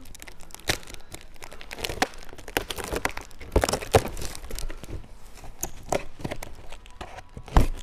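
Cardboard boxes and plastic-wrapped packaging being handled and shifted: crinkling and rustling with scattered knocks, the sharpest one near the end.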